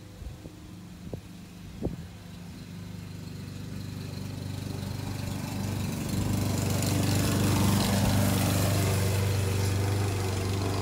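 Yard Machines walk-behind lawn mower engine running steadily, growing louder as it comes closer and loudest over the last few seconds. A few light knocks sound in the first two seconds.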